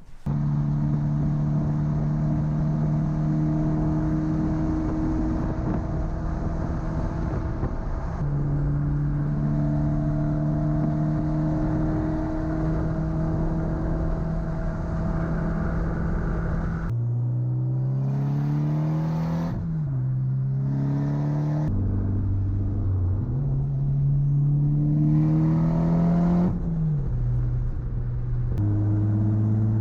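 A tuned Mitsubishi Lancer Evolution X GSR's turbocharged 2.0-litre four-cylinder engine under way. It holds fairly steady revs for the first half, then pulls twice, the pitch climbing and then dropping sharply at each gear change, and settles at steady revs near the end.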